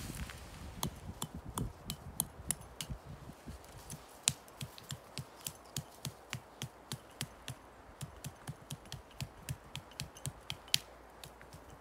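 Hand saw cutting through the base of a small conifer's trunk in quick, even strokes of about three a second, each a short sharp scrape.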